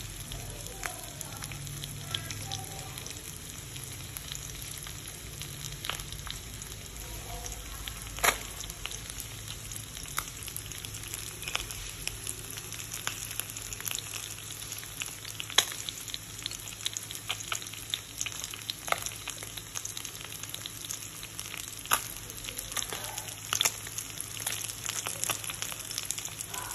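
Small whole fish frying in oil in a pan, a steady sizzle with frequent sharp pops and spits of oil. The loudest pops come about 8 and 15 seconds in.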